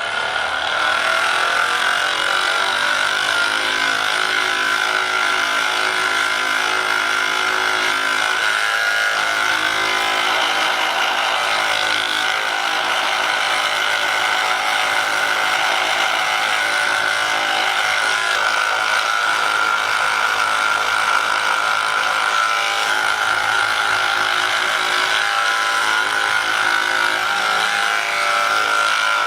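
A handheld electric massage device runs steadily against a patient's back muscles, with a constant motor hum and whine.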